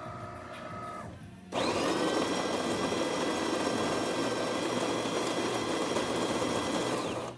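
Built-in burr grinder of a DeLonghi Magnifica bean-to-cup espresso machine grinding beans. It spins up sharply about a second and a half in, runs as a steady motor whine over a gritty grinding noise, and stops abruptly near the end. A faint steady hum from the machine comes before it.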